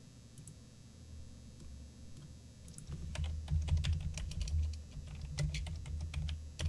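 Typing on a computer keyboard: a few faint clicks at first, then a quick run of key clicks from about three seconds in, with a low thud under the keystrokes.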